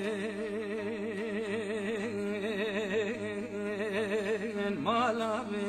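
Folk singing over a steady drone: a voice holds one long note with wide vibrato, then breaks into a quick rising-and-falling ornament near the end.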